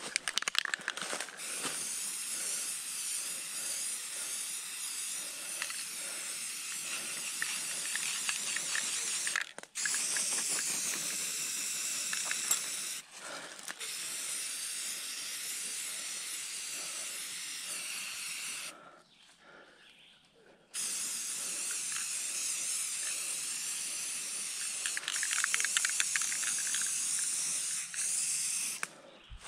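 Aerosol can of purple marking paint hissing steadily as it is sprayed onto a tree trunk. It stops briefly twice, then pauses for about two seconds partway through before spraying again.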